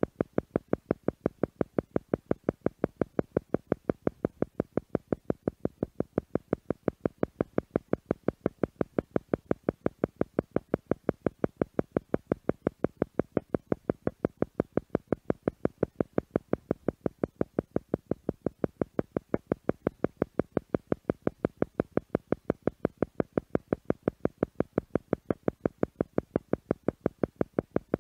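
Theta meditation tone: a synthetic tone pulsing on and off in a rapid, perfectly even train, several pulses a second, unchanging throughout.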